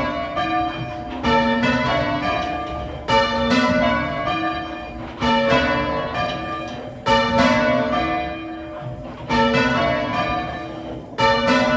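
Church tower bells change ringing: a run of bells struck one after another in rows, each bell ringing on, with a fresh surge of strikes about every two seconds.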